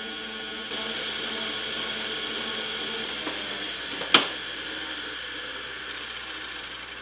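Metal lathe running steadily during a threading job, its gear train giving a steady whine with many fixed tones. A single sharp click sounds about four seconds in.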